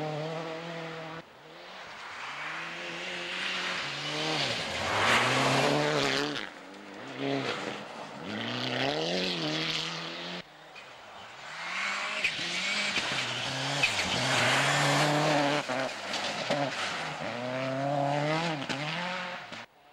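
World Rally Cars on a snow stage, engines revving hard with rising and falling pitch through gear changes and lifts as each car passes, over the hiss of tyres and thrown snow. The sound cuts abruptly from one car to the next twice.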